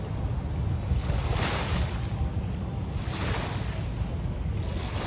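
Wind buffeting the microphone on a moving motorboat, with water splashing and hissing along the hull in surges about every two seconds as it rides through waves.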